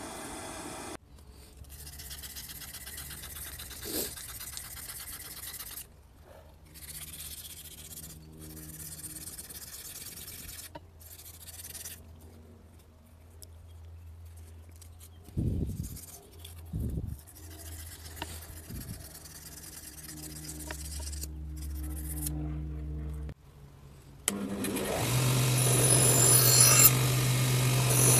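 A Ryobi belt sander starts running for the last few seconds, with a steady motor hum and a loud rasping hiss as it grinds a steel knife. Before that come quieter stretches of low hum with a couple of knocks.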